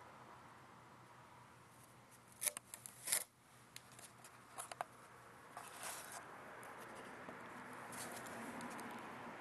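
Handling noise: a few short, sharp clicks and rustles over a faint steady hiss, bunched about two and a half to three seconds in, with a few more around the middle.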